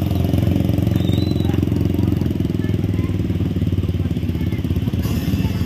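Motorcycle engines running at low speed close by, a steady low rumble of rapid firing pulses.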